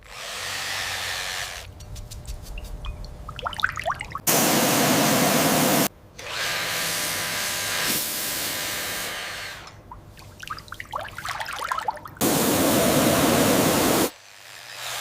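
Workshop tool sounds in short cut segments: a small power tool's motor running steadily, bouts of scraping and tapping on metal, and two loud bursts of steady hiss about a second and a half long, around four and twelve seconds in.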